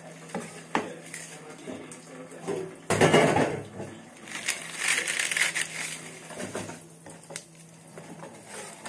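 Kitchen food-preparation noises: scattered clicks and knocks with crunching and rustling, the loudest burst about three seconds in and another about five seconds in.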